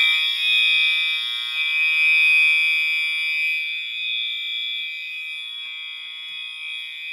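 Fire alarm horns sounding a loud, steady, high-pitched continuous tone, set off by pulling a manual fire alarm pull station.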